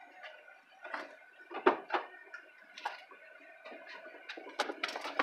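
Irregular knocks, clunks and rustling from someone rummaging through a dumpster, heard from inside a car with its door open. The loudest clunks come about a second and a half in, and the knocking grows busier near the end.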